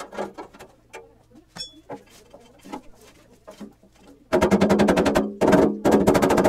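Steel engine oil pan being turned over and handled on a workbench: scattered knocks and clicks of sheet metal on the bench, then, about four seconds in, a loud rapid metallic rattle with ringing, in two spells of about a second each.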